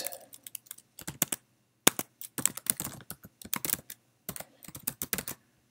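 Typing on a computer keyboard: quick runs of keystroke clicks separated by short pauses.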